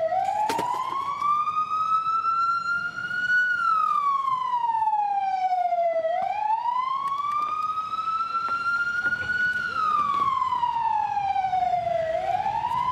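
Ambulance siren wailing, its pitch rising slowly and falling back about every six seconds, and the louder sound throughout.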